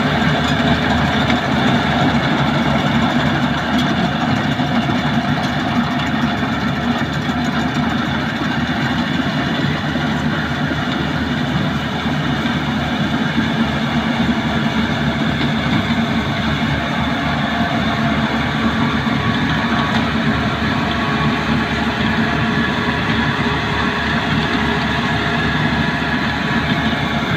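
Rice combine harvester running steadily, a loud continuous engine drone with no break or change.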